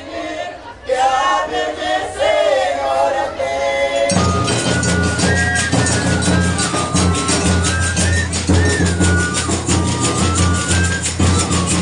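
Terno de Reis folk group: group singing for the first few seconds, then about four seconds in the band comes in with bass drum and jingling hand percussion in a fast steady beat under a high melody.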